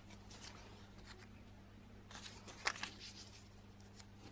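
Faint rustling and light taps of cut-out paper pieces being handled and laid on a table, with a small cluster of crinkles about two to three seconds in, over a low steady hum.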